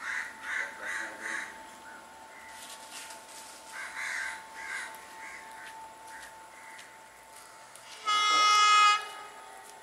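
Sri Lanka Railways Class S8 diesel multiple unit sounding its horn in one loud blast of about a second, about eight seconds in. Before it, short bird calls come in two runs of several quick calls each.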